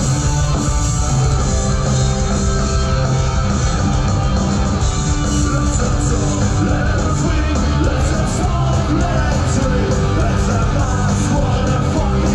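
Live rock band playing loud through a big outdoor PA, heard from inside the crowd, with distorted guitars, drums and sung vocals.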